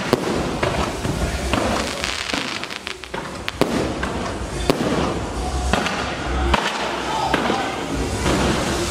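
Fireworks going off: a rapid, irregular run of sharp bangs and crackles from aerial shells bursting overhead, with a brief lull about three seconds in.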